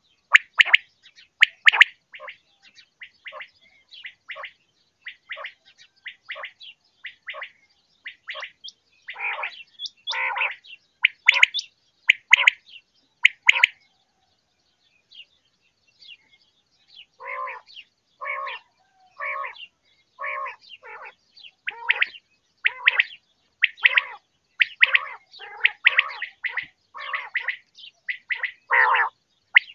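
Quail calling over and over in short, separate calls, about one or two a second, with a pause of about three seconds near the middle.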